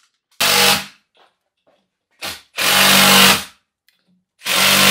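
Handheld power drill or driver run in short bursts: three of about a second each, with a brief blip before the second, its motor whine steady while it runs.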